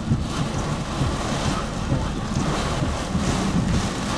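Severe thunderstorm winds gusting well over 80 mph with torrential rain, a dense, rushing noise that swells and falls with the gusts. Heavy wind rumble on the microphone.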